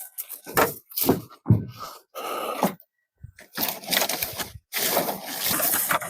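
Tree branches cracking and snapping several times as they are broken apart, then longer stretches of scraping and rustling as the cut brush is handled.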